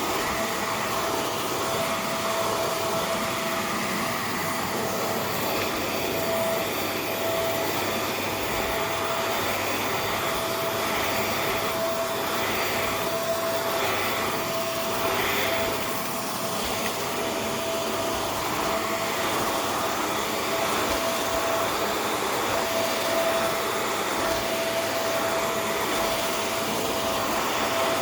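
Vacuum cleaner running steadily: a rush of suction air under a constant motor whine, with a few brief rhythmic swells in the airflow about midway as the head is worked back and forth over the surface.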